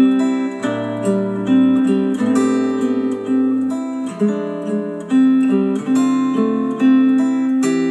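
Instrumental guitar music with strummed, sustained chords changing every second or so, played back through Dayton Audio B452 bookshelf speakers driven by a Yamaha A-S301 integrated amplifier.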